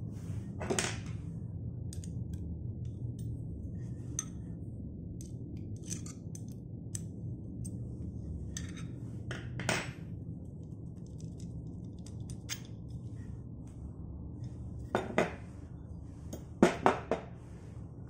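Metal parts of a bicycle crankset clinking and knocking against a wooden table as the crank arm and spindle are handled and the left arm is taken off the spindle, with a few louder knocks near the middle and a cluster near the end. A steady low hum runs underneath.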